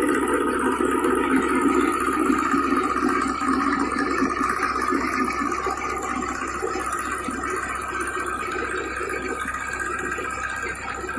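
Tractor-mounted chain trencher at work: the tractor engine drives the digging chain as it cuts a trench and throws out soil, making a steady rushing noise.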